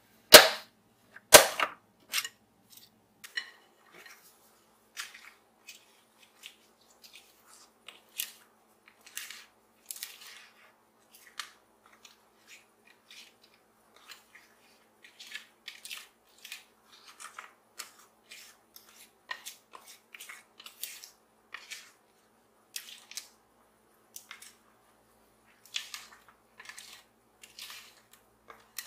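Two sharp clacks in the first two seconds as the hand mixer's metal beaters are taken out of the batter and knocked against the glass mixing bowl. Then a rubber spatula scrapes and taps thick brownie batter out of the glass bowl into a glass baking dish: scattered soft scrapes and light taps.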